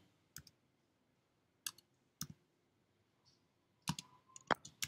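Computer keyboard keys being typed: a few single taps spaced well apart, then a quicker run of keystrokes near the end.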